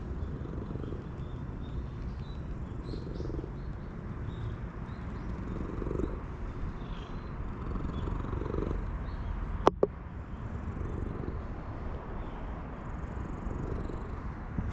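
Stray tabby-and-white cat purring steadily at close range while being stroked. Two sharp clicks about ten seconds in.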